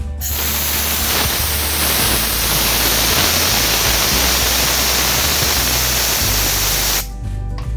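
Compressed air from a Scheppach compressor's tank blasting out through a handheld air blow gun, venting pressure: a loud, steady hiss that starts just after the beginning and cuts off sharply about a second before the end.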